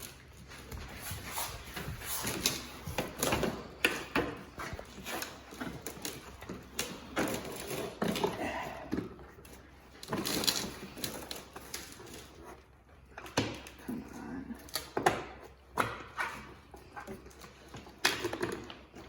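Irregular knocks, taps and clatter of car bumper parts being handled and pushed into place, scattered unevenly with short quiet gaps.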